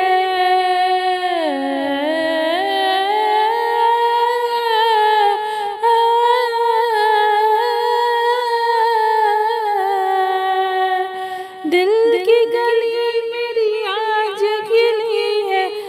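A woman's solo voice humming the melody of an Urdu devotional manqabat without words, in long held, gliding notes. The line dips low about two seconds in, breaks off briefly near the end, and starts again.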